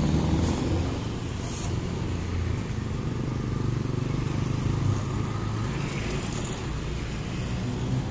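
City street traffic: motorcycles and cars driving past with a steady engine rumble that swells and fades as they pass.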